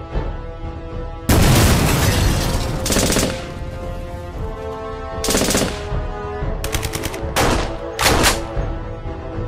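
Gunfire sound effects over background music: a long loud volley starting about a second in, followed by several short, rapid machine-gun bursts.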